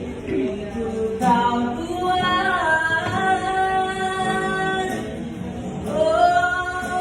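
A street busker singing long held notes without clear words, the pitch sliding between notes, the longest held from about two and a half to five seconds in.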